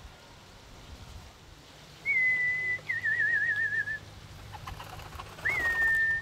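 A person whistling three clear notes: a short steady one, then a warbling one that wavers and sinks slightly, then one that swoops up and holds.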